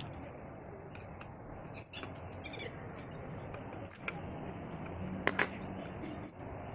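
Small metallic clicks and taps of a spanner working a brass air-hose fitting onto an air horn's valve body, scattered irregularly with a sharper double click about five seconds in, over steady background noise.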